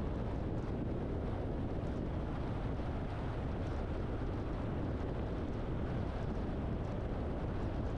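Truck driving on the road: steady road and wind noise, a constant low rumble with a hiss above it and no changes.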